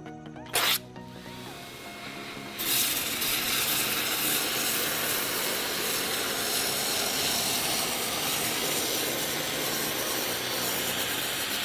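Worx Hydroshot 725 psi battery-powered pressure washer blasting a water jet into corrugated cardboard: a loud, steady hiss of spray that starts about two and a half seconds in and holds, after one brief loud burst just over half a second in. Background music plays underneath.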